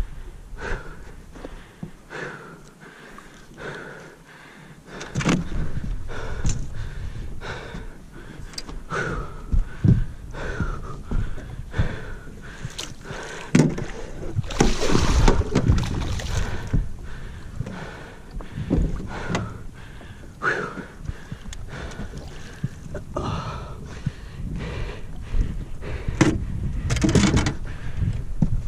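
Irregular knocks, clicks and handling noise aboard a small fishing boat, with a louder rush of noise for a couple of seconds about halfway through.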